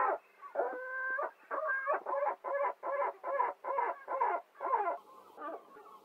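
Gulls calling: a single call at the start, then a longer call and a rapid run of short, repeated calls, about four a second, that stops about five seconds in.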